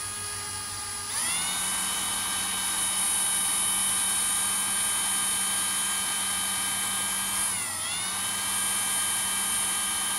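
Power drill with a cobalt bit boring into a steel pin that holds a Shimano 10-speed cassette's cogs together: a steady motor whine that speeds up about a second in and briefly sags under load about eight seconds in before recovering.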